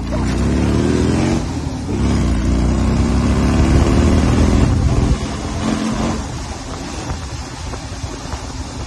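Rail buggy's engine running hard under throttle, easing off briefly about a second and a half in, then dropping back about five seconds in to a rougher, quieter run.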